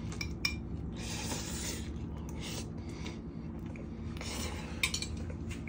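Ramen noodles being slurped from a bowl, in two stretches, with a fork clinking against the bowl a couple of times, over a steady low hum.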